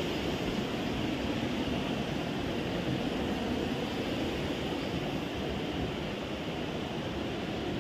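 Steady rushing of a nearby river, an even hiss of flowing water.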